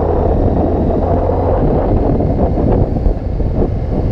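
Sport motorcycle running along at about 40 km/h, its engine drone mixed with heavy wind rushing over the action camera's microphone.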